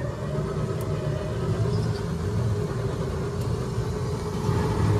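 Ride vehicle's engine running steadily as it moves along, a low even rumble heard from the passenger seat.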